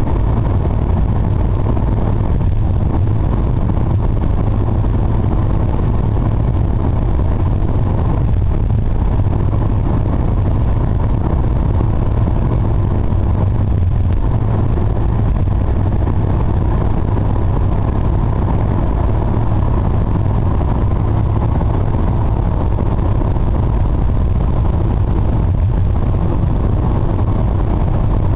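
Steady low drone of a car travelling at highway speed, heard from inside the car: engine and road noise with no marked changes.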